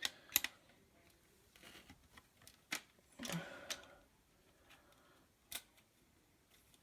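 Scattered small clicks and taps as a screwdriver and hands work on an Asus laptop's plastic case and screws during disassembly, with a short scraping rustle a little past three seconds in.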